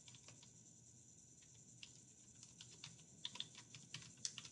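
Faint computer keyboard typing. A few keystrokes come first, then a lull of about a second, then a quicker run of keystrokes as a word is typed out.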